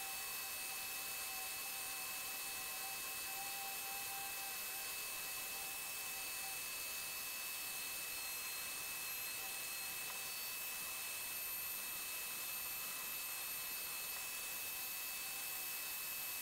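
Dremel 4300 rotary tool on a flex shaft running at high speed, its burr cutting and shaping wood: a steady high whine made of several thin tones that waver slightly as the burr bites, over an even hiss.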